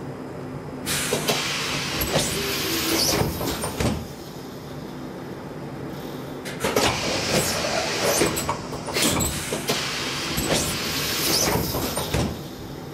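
Passenger doors of a Saltsjöbanan C10-class electric railcar sliding shut, with a bout of hissing and knocking about a second in. A second, longer bout of hissing and knocks follows from about six and a half seconds, over the car's steady hum.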